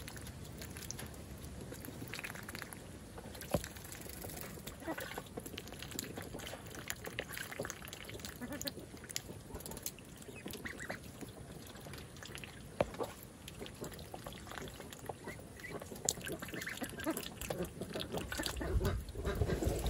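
Young ducks quacking off and on, with light splashing from a duck bathing in a shallow tub of water. Wind rumbles on the microphone near the end.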